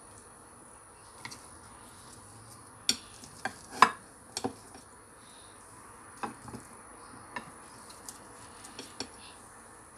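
Serving spoon scooping potato salad from a china bowl onto a plate: scattered light clicks and knocks of the spoon against the crockery, the loudest about four seconds in.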